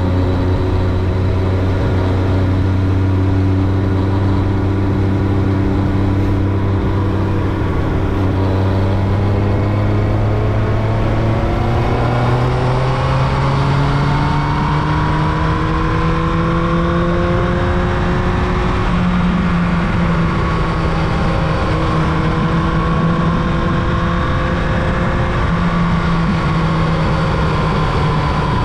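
Carburetted 2000 Yamaha YZF-R1's inline-four engine running steadily. Its pitch climbs about twelve seconds in, then rises and falls gently with the throttle.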